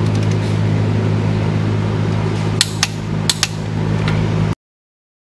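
Sharp metallic clicks, four of them between about two and a half and three and a half seconds in, from a torque wrench being pulled on cylinder-head bolts during the first 75 stage of the torque sequence. A steady low hum runs underneath. All sound cuts out abruptly about four and a half seconds in.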